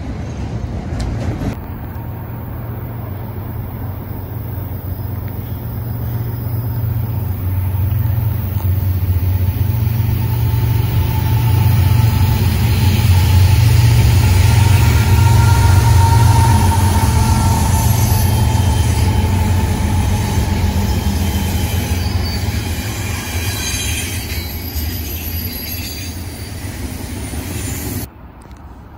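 Diesel-hauled double-stack intermodal freight train passing close by. A heavy low rumble builds as the locomotives approach and is loudest about halfway through. As the container cars roll past in the latter half, high-pitched wheel squeal rises over the rumble.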